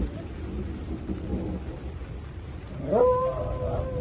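West Highland white terrier whining: a single whine that rises sharply and then holds one pitch, starting about three seconds in, over a low rumbling background.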